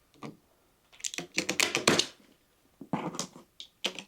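Bursts of quick clicks and rattles from hard objects being handled, the longest burst between about one and two seconds in, with shorter ones near the end.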